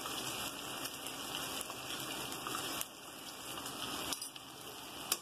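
Onion-tomato masala frying in oil in a kadai, a steady sizzle, with a sharp click near the end.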